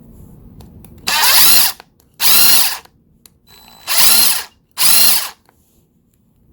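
Workpro 20V cordless impact wrench with a brushed motor, its trigger pulled four times in short runs of under a second each. The motor whines up in pitch at each pull and stops between them.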